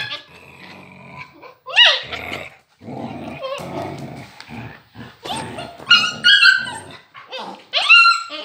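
Huskies play-fighting: rough growling broken by repeated sharp, high yips and barks, about half a dozen of them.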